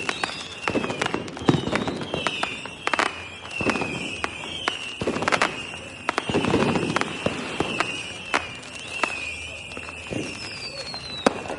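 New Year's Eve fireworks and firecrackers going off: a dense, irregular string of sharp bangs and crackles with some deeper booms. A high, wavering whistle runs through it, and a falling whistle comes near the end.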